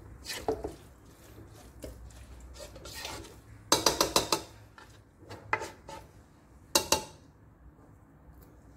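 Utensils stirring vegetables and corned beef in a speckled non-stick wok, scraping and clicking against the pan. A quick run of sharp clattering knocks comes about four seconds in, and a single loud knock about seven seconds in.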